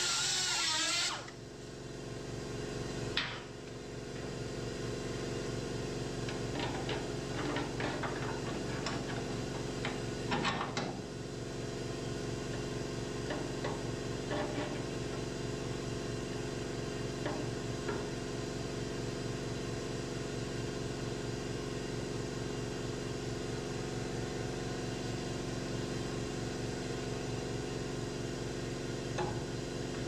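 A motor hums steadily with a faint rhythmic pulse while wrenches clink now and then against metal under the car, loudest about three seconds in and around ten seconds in. Background music ends about a second in.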